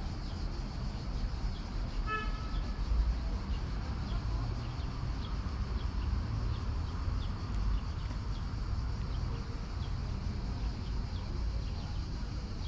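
Street ambience with a steady low rumble. A short car-horn toot sounds about two seconds in, and faint high chirps recur every so often.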